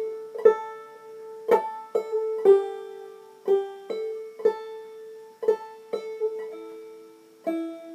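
Five-string banjo in double D tuning played clawhammer style, slowly picking out a melody phrase on the second and third strings one note at a time. The notes come about every half second to a second, each ringing on over a steady held note.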